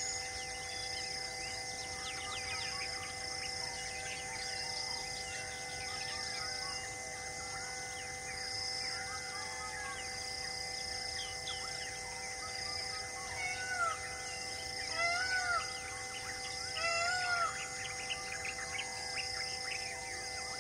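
Several wild birds calling and singing: a short high note repeated about once a second, many scattered chirps, and a few louder arching calls in the second half. These sit over a steady high hiss.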